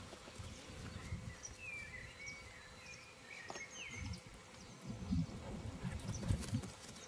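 Outdoor field sound: wind rumbling and buffeting on the microphone, with a few short bird chirps between about one and a half and four seconds in.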